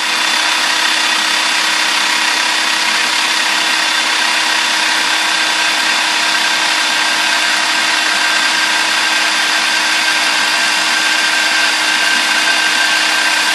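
Electric food processor running steadily at one even pitch, its blade blending a blueberry-balsamic purée while olive oil is drizzled in through the feed tube to emulsify the vinaigrette.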